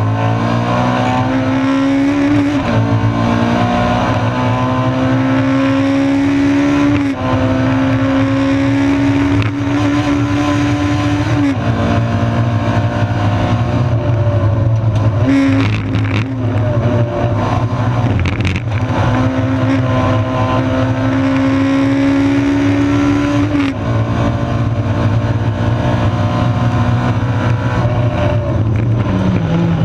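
Honda 1.6-litre race car engine heard from inside the stripped cabin under racing load, its pitch climbing steadily and dropping sharply at each gear change, several times over, over a steady low road drone.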